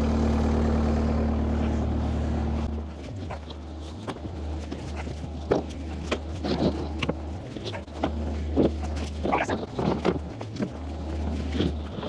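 A vehicle engine running with a steady low hum that drops away about three seconds in, leaving a fainter, uneven low rumble with scattered knocks and clicks.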